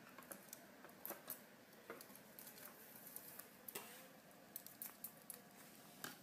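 Faint, irregular light taps and clicks of a small bird's claws on a wooden floor and the cardboard tube it wears knocking along, over quiet room tone.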